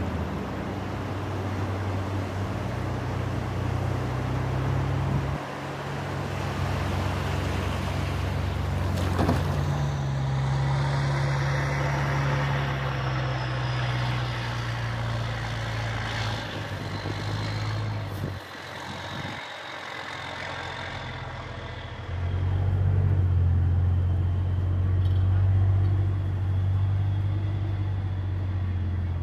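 Amphibious Combat Vehicle's engine running with a deep, steady drone. The drone dips for a few seconds past the middle, then comes back louder.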